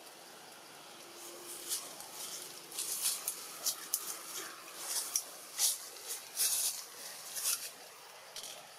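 Short, irregular rustles, about a dozen over several seconds, from macaques shifting among leafy tree branches.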